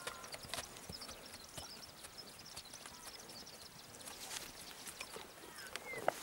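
Faint, soft hoofbeats of two young horses walking on grass, scattered light thuds with no clear rhythm.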